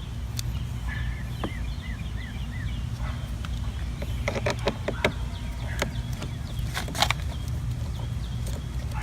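A bird calling a quick run of short, arched whistled notes about a second in. Several sharp clicks and knocks follow between about four and seven seconds in, over a steady low hum.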